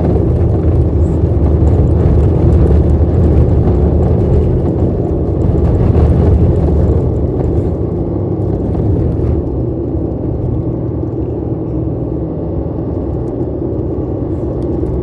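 Four-wheel drive's engine and drivetrain running under load in high range on a sandy dune track: a steady low rumble that eases a little after about seven seconds.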